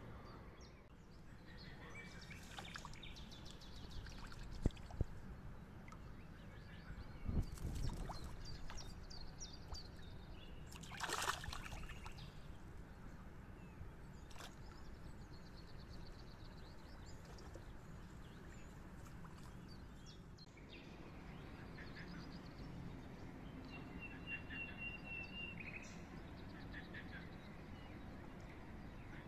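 Pond-side ambience with intermittent splashes and sloshing from crucian carp spawning at the surface in the shallows. Small birds chirp throughout, with a quick run of chirps near the end.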